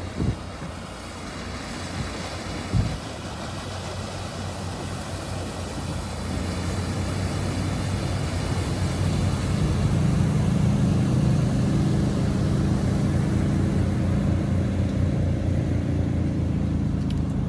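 Carver cabin cruiser's engine drone as the boat runs past at speed, growing louder from about six seconds in and then holding steady. Two brief thumps come in the first three seconds.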